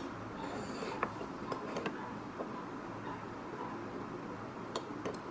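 Close-miked eating sounds: quiet chewing with a brief crunch near the start and a scattering of small clicks and taps from a fork and chopsticks, over a steady low hiss.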